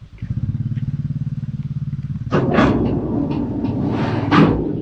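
Sawmill machinery: an engine starts running with a rapid low pulse, and about two seconds in a louder, harsh rushing noise joins it and keeps going.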